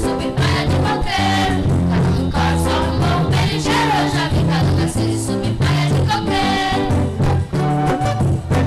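Music: a band playing an upbeat song with a steady beat and bass.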